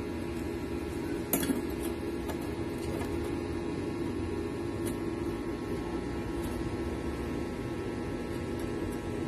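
A bent 1/8 by 3/4 inch steel flat-bar hoop handled on a steel work table, giving a few light metallic clinks, the loudest about a second and a half in, over a steady hum.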